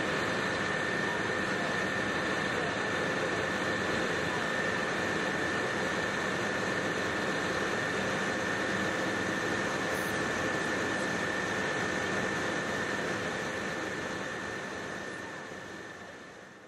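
A tugboat's engine running steadily, heard on board, with a constant high whine over a steady rushing noise. It fades out over the last few seconds.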